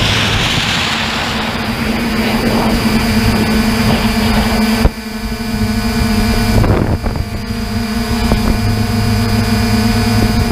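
Multirotor camera drone hovering: a steady propeller and motor hum with several fixed pitched tones. A hissing rush fades out in the first second or two, and there is a brief knock about five seconds in.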